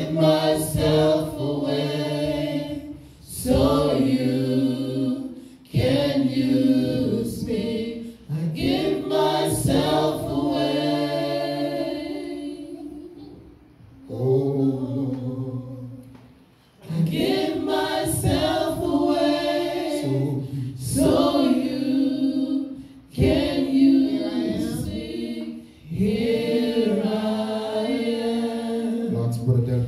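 A small group of singers singing a slow worship song without instruments, through handheld microphones, in long held phrases with brief breaks between them.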